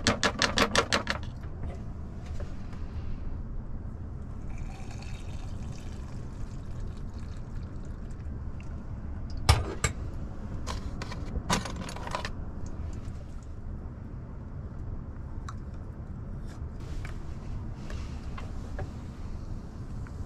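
Hands-on coffee-making sounds in a small van kitchen: rapid ticking in the first second, a soft stretch of water-like hiss, then a few sharp knocks and clicks from about nine to twelve seconds in, over a steady low rumble.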